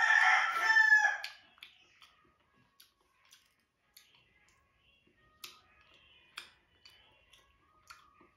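A rooster crows once, loud, for about a second at the start, its call falling in pitch as it ends. After that, only faint scattered clicks and taps from eating by hand out of steel bowls.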